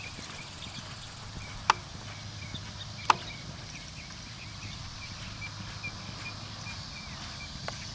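Hoofbeats of a horse loping on soft arena dirt, faint under a steady low hum. Two sharp clicks stand out, a little under two seconds and about three seconds in, and a run of short high chirps repeats a few times a second through the middle.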